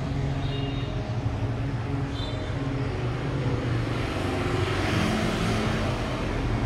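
Steady road traffic noise, a low rumble of engines.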